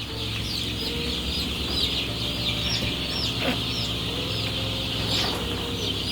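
A large flock of four-week-old chicks cheeping non-stop, many short high peeps overlapping, as the birds are chased to be caught for debeaking. A low steady hum runs underneath.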